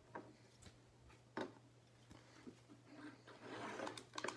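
Trading cards and hard plastic top loaders being handled: a few light clicks and taps, a short rustle of cards sliding about three seconds in, and a quick run of clicks near the end.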